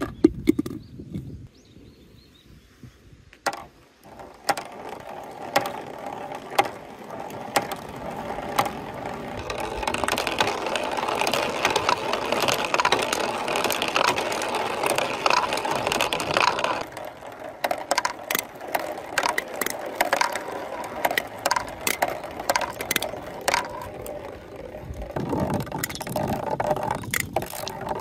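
Small plastic balls rolling down plastic rain-gutter chutes, with many sharp clicks and knocks as they strike the gutter walls and joints. From about a third of the way in to past the middle there is a continuous louder rolling rumble.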